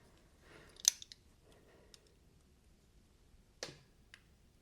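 Small metal hand tools and driver bits being handled on a bench: a sharp click about a second in and another near the end, with a few lighter ticks and short rustles between.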